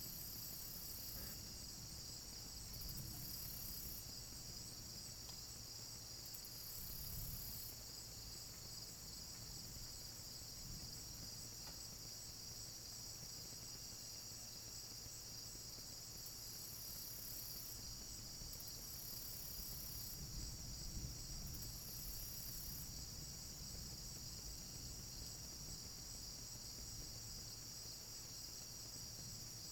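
Night insect chorus: crickets trilling steadily in a high, continuous band. Above them a still higher buzz switches on and off in spells of a second or two.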